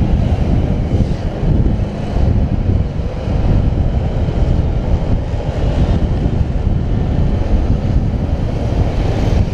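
Heavy wind buffeting on the action camera's microphone as a Bajaj Pulsar 200NS motorcycle rides at road speed, with the bike's single-cylinder engine running underneath.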